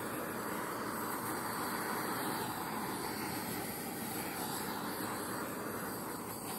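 Small handheld torch burning with a steady hiss as its flame is passed over wet acrylic pour paint to pop air bubbles.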